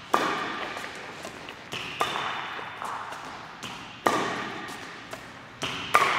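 Badminton rackets striking shuttlecocks in a drill: a sharp crack about every two seconds, four times, with lighter taps in between. Each hit rings out in a long echo.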